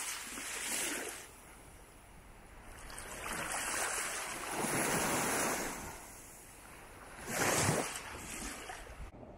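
Small waves washing up on a sandy beach: surges of surf noise coming in three swells, the loudest and shortest about seven and a half seconds in.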